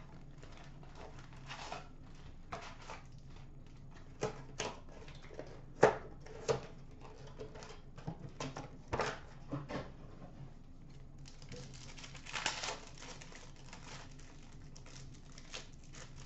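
Plastic wrapper and foil card packs being pulled open and handled: scattered crinkles, taps and clicks, with a longer spell of crinkling about eleven to thirteen seconds in.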